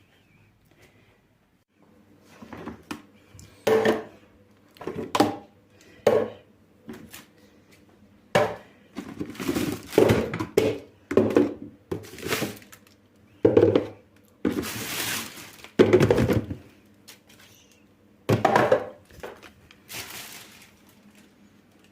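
Irregular knocks, clatters and rustles of household items and packaging being handled and set down, with a faint steady hum underneath.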